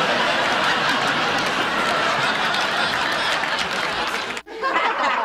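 Sitcom studio audience laughing and applauding, a dense crowd sound that cuts off abruptly about four seconds in.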